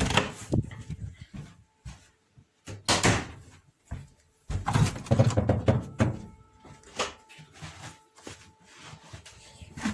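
Loud bumps and knocks, like a door and things being handled, over a faint, steady distant air-raid siren tone.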